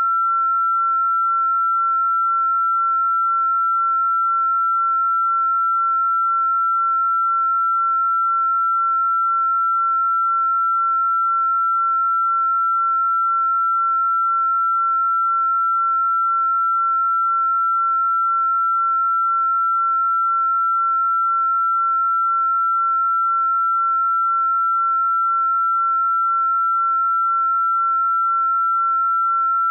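A single electronically generated pure sine tone, the video's 'estrogen frequency' healing tone, held steady and unchanging in pitch and loudness at a fairly high pitch.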